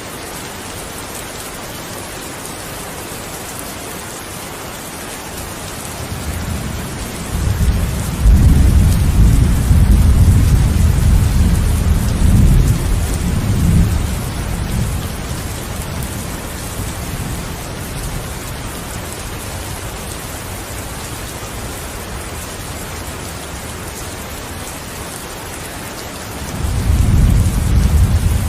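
Steady rain hiss, with a long rolling rumble of thunder that builds about six seconds in, runs for several seconds and fades. A second thunder rumble starts near the end.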